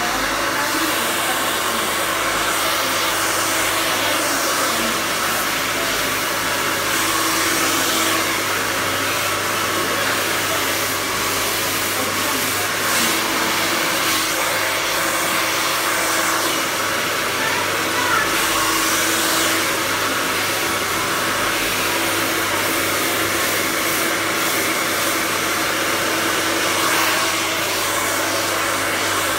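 Handheld hair dryer blowing steadily, with a constant motor hum under the rush of air.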